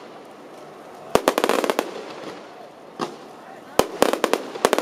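Aerial fireworks bursting: a quick run of sharp bangs about a second in, a single bang around three seconds, then another rapid run of bangs near the end.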